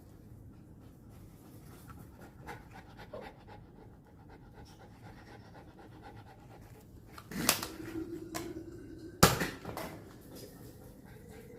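A dog panting rapidly and steadily, with two sharp clicks or knocks about two seconds apart near the end, the second the loudest.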